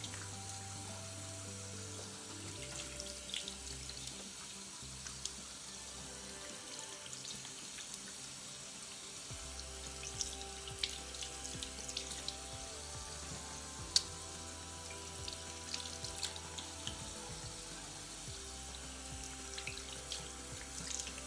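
Tap water running into a sink, with small splashes as a clay mask is rinsed off a face by hand. Background music plays underneath, and there is one sharp knock about fourteen seconds in.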